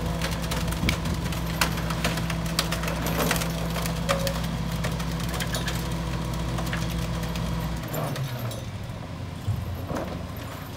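Rear-loader garbage truck engine running steadily while broken wood and metal debris is thrown into the hopper with repeated clattering knocks. About eight seconds in, the engine's steady drone drops away to a lower level.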